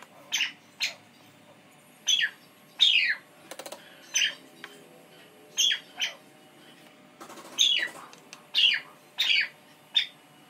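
A bird calling over and over: short, high calls, each sliding down in pitch, at about one or two a second.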